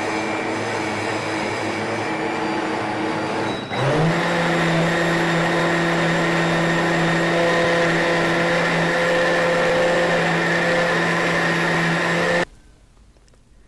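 OmniBlend high-power blender running, briefly mixing almond milk that is already ground smooth. Its motor hum steps up in pitch and loudness about four seconds in, runs steadily, and cuts off abruptly near the end.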